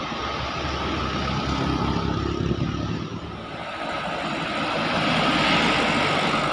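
Road traffic passing close: an engine drones for the first few seconds, then a rush of tyre and wind noise builds to a peak near the end as a vehicle goes by.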